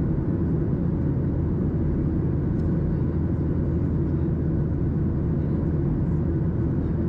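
Steady in-cabin noise of a Boeing 737-800 climbing: its CFM56 turbofan engines and rushing air heard from a window seat over the wing. It is a constant low rumble with a faint steady hum on top.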